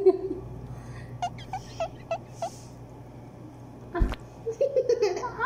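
A run of short, quick giggles, then a single knock about four seconds in, followed by a burst of laughter near the end.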